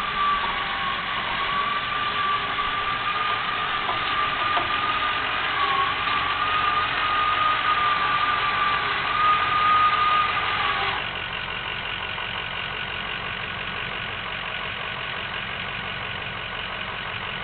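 Engine-driven machinery of a tilt-deck shed-moving trailer running as a storage building is lowered off the deck: engine noise with a steady high whine that drops in pitch at the start, holds with a slight waver, and cuts off suddenly about eleven seconds in, leaving the engine running.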